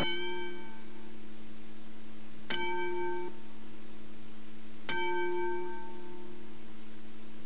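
A bell-like chime struck three times, about two and a half seconds apart, each ringing out and fading over about a second, over a steady low hum.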